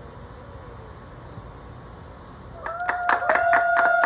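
Clapping from video-call participants breaks out about two and a half seconds in, over a long held high note of a voice cheering.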